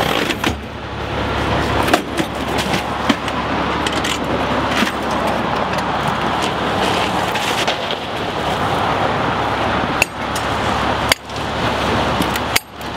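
Fire engine's diesel engine running at idle, a steady rumble, with a few sharp knocks and clicks scattered through it.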